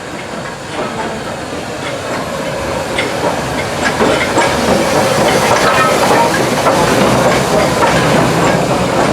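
Steam-hauled train running on the rails with a hiss of steam, growing steadily louder, with a few brief squeals near the middle.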